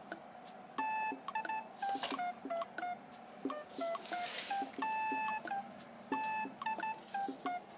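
Light background music of short plucked notes.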